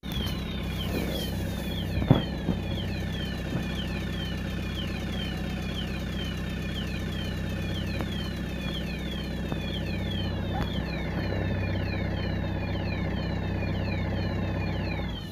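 Level crossing warning bell ringing about twice a second, each stroke a short falling electronic tone, over a steady idling engine hum. A single sharp knock about two seconds in.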